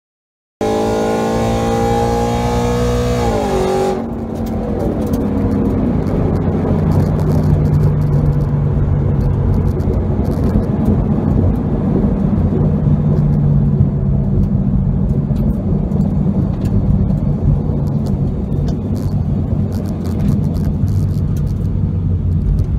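2014 Mustang GT's 5.0 V8 with a muffler-delete exhaust, pulling hard at full throttle, heard from inside the cabin. The engine note drops once about four seconds in at an upshift, then the engine runs on loud and steady under a rush of wind and road noise.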